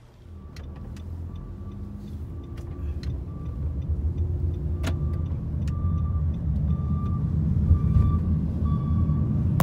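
Road and engine noise heard from inside a moving car's cabin: a steady low rumble that grows louder as the car gathers speed.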